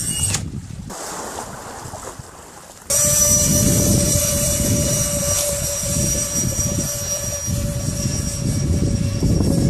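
Electric ducted fan of an RC plane running with a steady high whine over low wind rumble on the microphone. It comes in suddenly and louder about three seconds in, after a quieter stretch of rushing noise.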